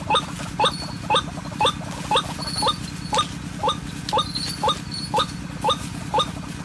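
White-breasted waterhen call, a short rising 'kwak' note repeated very evenly about twice a second, over a steady low hum.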